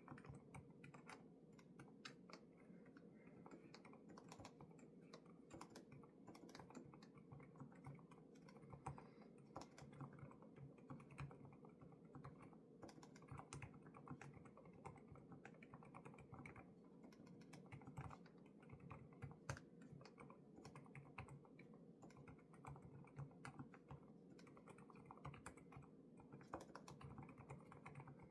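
Continuous typing on a Lofree Flow2 low-profile mechanical keyboard with Kailh Void switches, many quick, irregular keystroke clicks, recorded faintly over a steady low hum.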